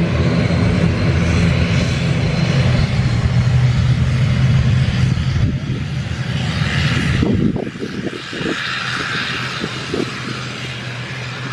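Airliner's engines running loud close by, a steady rushing roar with a low hum beneath it, easing off somewhat about seven and a half seconds in.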